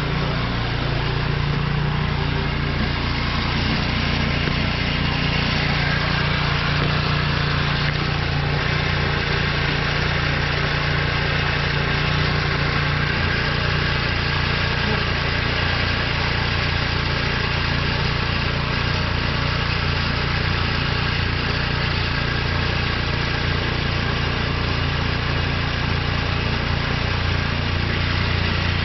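Gas snowblower engine running steadily at high throttle while clearing heavy, wet snow.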